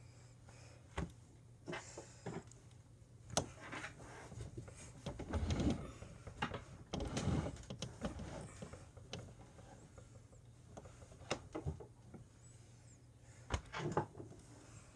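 Someone moving about and handling things close by: scattered knocks and clicks, with two longer rustling stretches about five and seven seconds in, over a steady low hum.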